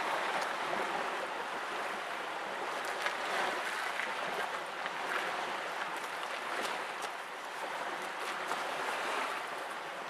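Small waves lapping and splashing against a stone harbour quay: a steady wash of water that swells and eases irregularly, with faint little splashes.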